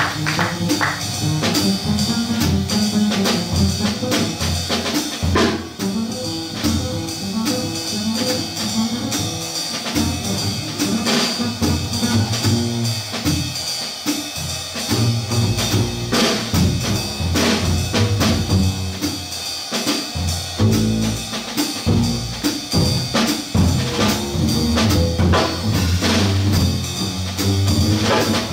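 Jazz double bass, plucked, and a drum kit playing together as a duo section of a chordless trio, with no trumpet heard over them.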